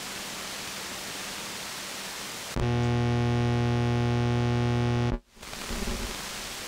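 CB radio receiver on the 11-metre band (27.285 MHz) hissing with band static; about two and a half seconds in a strong signal comes up with a steady low buzzing tone that quiets the static, then drops out suddenly about five seconds in and the hiss returns.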